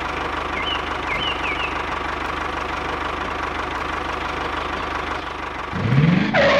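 Tractor engine sound running steadily with a fast, even knocking beat, laid over a toy tractor driving. Near the end a louder sound rises in pitch.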